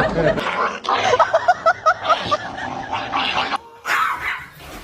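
Dogs barking and yipping at each other in a confrontation, with a quick run of about five short, high yips a little over a second in.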